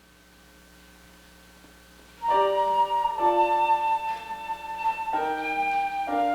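Flute and piano music starting: faint held notes, then about two seconds in the ensemble enters louder with slow sustained chords that change roughly once a second.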